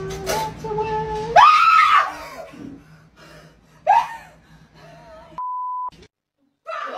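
A woman screams in fright: one loud, high scream about a second and a half in, then a shorter shriek about four seconds in. Near the end comes a short flat bleep.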